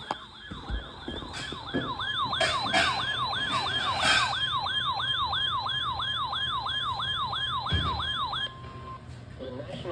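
Electronic alert siren in a fast falling yelp, repeating about two and a half times a second. It stops about eight and a half seconds in, leaving a brief steady tone, with a few knocks heard over it.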